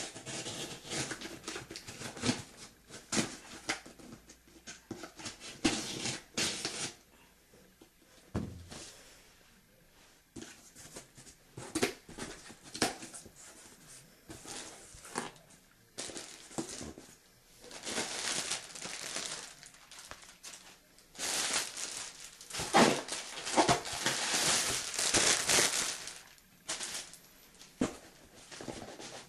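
Speaker-set packaging being handled and opened: crinkling, rustling and tearing in irregular bursts, with sharp clicks and knocks. A longer, louder spell of crinkling comes about three-quarters of the way through.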